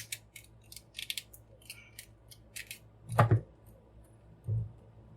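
Handling of a large plastic toy figure: a run of short plastic clicks and taps, then a dull knock about three seconds in and a softer one a second later.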